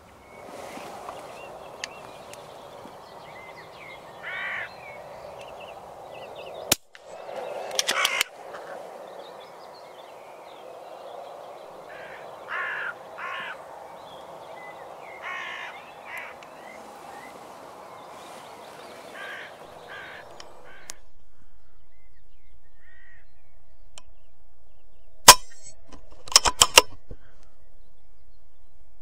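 Hooded crows cawing repeatedly, short calls spread through the first twenty seconds or so. Then, over a steady hiss, a single sharp shot from a .22 FX Crown precharged air rifle about 25 seconds in, followed a second later by a quick cluster of clicks.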